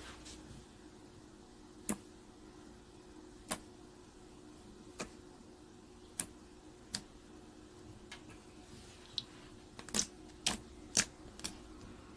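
Slime being pressed and poked, giving sharp pops and clicks one to two seconds apart, then several in quick succession near the end.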